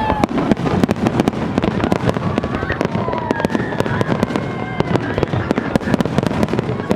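Aerial fireworks bursting in quick succession, many sharp bangs and cracks a second in a dense, continuous barrage.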